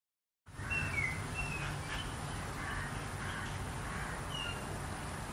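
Outdoor ambience that starts suddenly about half a second in: a steady low rumble with a handful of short, high bird chirps scattered through it.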